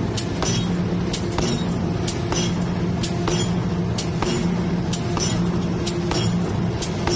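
A machine running with a steady hum and a sharp click about twice a second.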